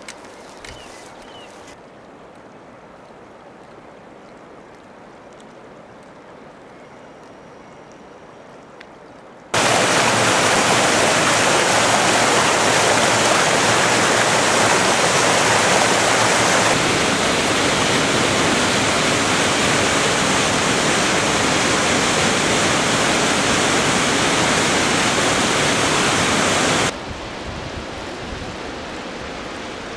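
Low outdoor background at first. About ten seconds in, the loud, steady rush of a rocky mountain creek and its waterfalls cuts in abruptly. Near the end it drops suddenly to a quieter rush of water.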